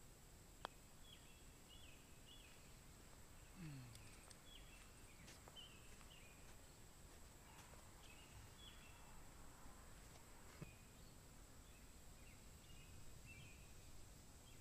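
Near silence with faint bird chirps repeating throughout and a steady high whine. Twice, under a second in and again about ten seconds in, there is the soft click of a putter striking a golf ball.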